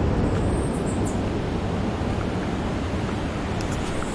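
Wind noise on the microphone over a steady rush of surf from the nearby shore.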